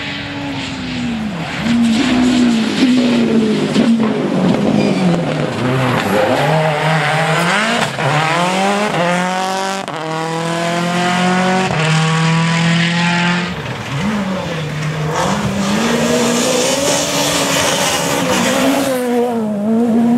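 Rally car engine revving hard, its pitch climbing and dropping again and again with gear changes and lifts off the throttle. Midway it winds up in one long rising pull, holds high for a few seconds, then drops suddenly.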